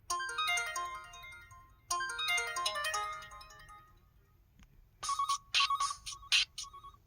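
Samsung SPH-W7100 phone ringtones. A quick tinkling run of synthesized notes plays twice and fades out. About five seconds in, a different ringtone starts with rhythmic, buzzy electronic beats.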